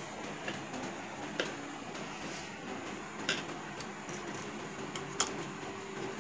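A few light clicks and knocks from hands setting fabric, lace and thread under a sewing machine's needle and presser foot, over steady room noise; a faint steady hum comes in near the end.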